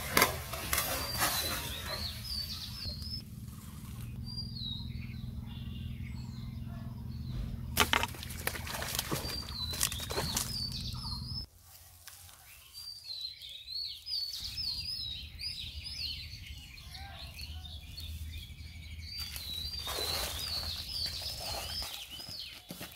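A songbird singing the same short warbled phrase over and over, high and wavering. Water splashing from a hooked fish thrashing at the surface near the start, and another sudden loud burst around eight seconds in. A low hum stops abruptly about halfway through.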